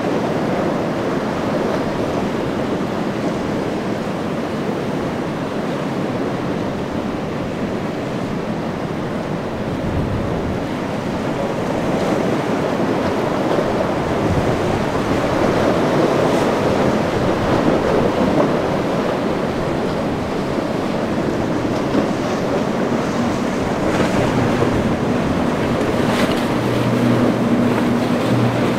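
Waves breaking and churning, with wind buffeting the microphone. Near the end a low, steady drone of a big center-console boat's outboard engines comes in as the boat passes close.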